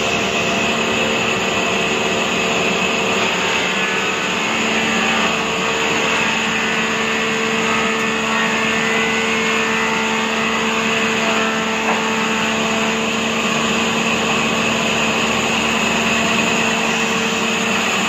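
Horizontal log bandsaw machine running steadily: a continuous hum with a steady pitch under a hiss.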